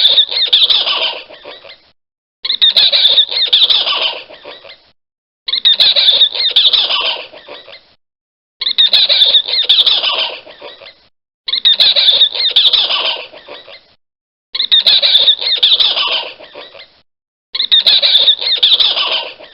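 A spider monkey screaming in a repeated, identical shrill call seven times, each scream lasting about two seconds and fading out, with short silent gaps between. The recording is loud and blown-out.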